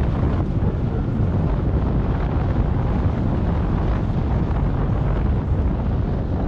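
Steady wind noise buffeting a GoPro camera's microphone as a bicycle rolls along a road, a loud low rumble with no let-up.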